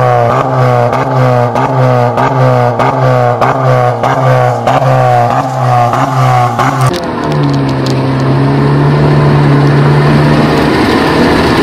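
Honda Civic RS 1.5-litre turbo four-cylinder through an XEX sport exhaust, revved in quick repeated throttle blips about twice a second, each falling back. About seven seconds in it changes to a steady engine note that rises slowly as the car pulls away and accelerates.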